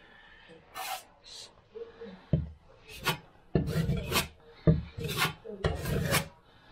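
Drywall knife spreading and scraping hot mud (setting-type joint compound) over a spot in a drywall patch: a series of short rasping strokes that start about two seconds in.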